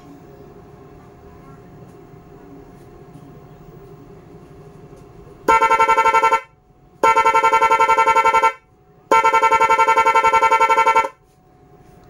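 A pair of electric snail horns driven through a horn-stutter module and relay, giving three loud blasts about halfway through. Each blast is chopped into rapid on-off beeps, about ten a second; the first blast is short and the last about two seconds long.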